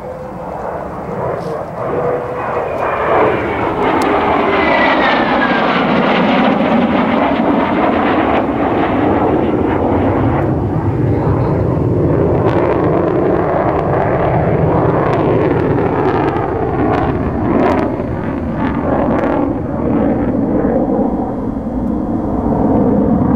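Mitsubishi F-2 fighter's single jet engine during a display pass: the noise grows over the first few seconds, with a falling whine, then holds as a loud, steady jet rumble.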